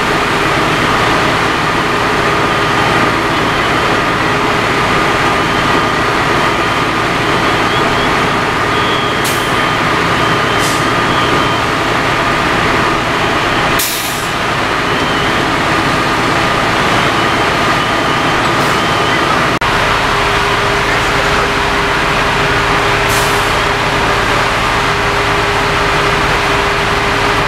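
Fire engine running steadily at high revs, its pump supplying the hose lines, with short hisses of air a few times.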